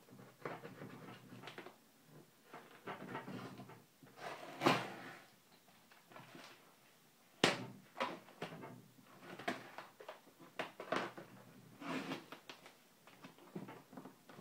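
Cardboard box being cut open: a knife scraping and slitting packing tape, and the tape peeling and tearing off the cardboard in irregular rasps and crackles, with a few louder rips and snaps.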